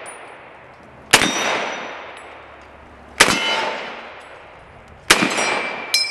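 Three M1 Garand rifle shots about two seconds apart, each followed by a long echoing decay, with a metallic ringing after the shots that is strongest after the last.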